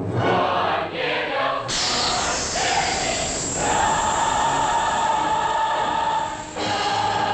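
Dramatic film score: a choir singing over an orchestra. The music swells about two seconds in, and a high note is held for about three seconds before a brief dip near the end.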